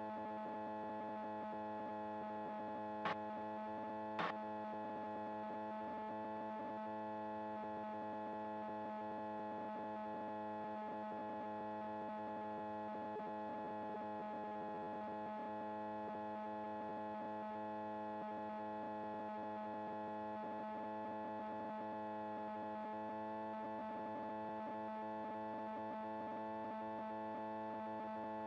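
Steady drone of a PiperSport's Rotax 912 engine and propeller in cruise flight, heard from the cockpit, with two short clicks about three and four seconds in.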